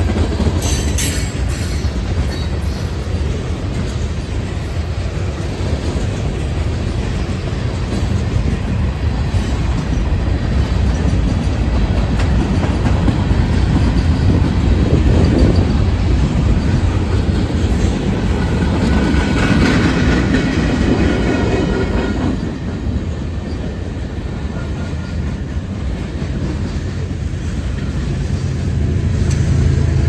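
Freight cars of a manifest train rolling past: a steady heavy rumble with wheels clattering over rail joints. Wheels squeal briefly about two-thirds of the way in.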